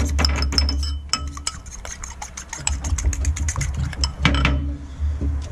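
A fork whisking egg and milk in a small bowl: rapid clinking of the fork against the bowl, several strokes a second, with a brief pause about a second in. A steady low hum runs underneath.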